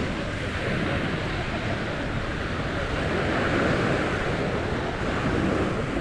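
Sea surf washing onto a sandy beach, with wind buffeting the microphone; the wash swells a little about halfway through.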